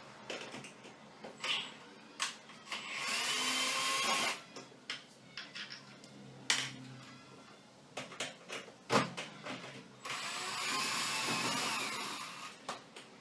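Electric screwdriver running twice, a few seconds each, as it backs out the rear screws of a washer-dryer, with clicks and knocks of screws and the tool being handled in between.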